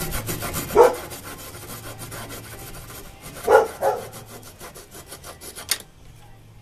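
Fast, rhythmic rasping and scraping on wood, with a few louder strokes about a second in and around three and a half seconds. It dies away near the end with a single sharp click.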